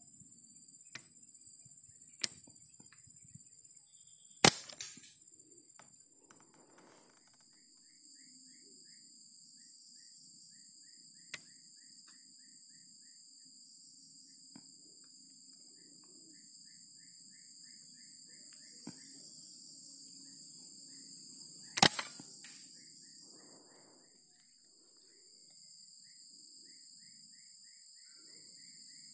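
Two sharp rifle shots, one about four seconds in and the other about seventeen seconds later, each with a short tail. Insects drone steadily throughout, with a repeated faint chirping.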